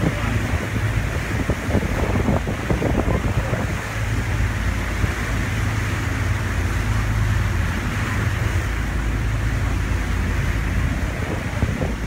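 Wind buffeting the microphone on a boat's open deck, gusty in the first few seconds, over a steady low rumble from the boat and the sea.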